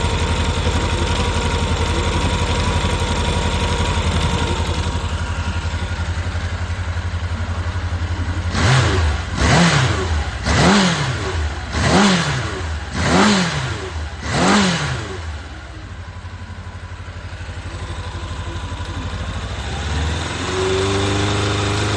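Honda CB750F (RC04) air-cooled inline-four engine idling steadily, then blipped six times in quick rises and falls about a second apart before dropping back to idle. Near the end its note settles into a steadier, even hum. The seller describes the engine as running strongly with no abnormal noise and high compression.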